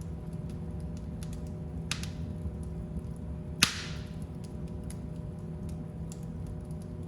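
Fire in a fireplace crackling: scattered small clicks over a steady low rumble. There is a softer crack with a short hiss about two seconds in, and one loud pop with a brief hiss after it about three and a half seconds in.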